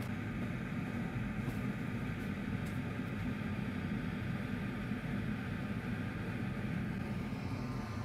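Steady low hum with a light hiss, the constant background drone of a workbench, with a couple of faint ticks.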